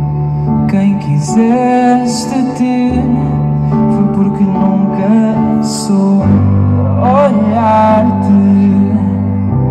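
Live pop ballad: a male voice singing over slow, sustained keyboard chords, the bass note changing every few seconds.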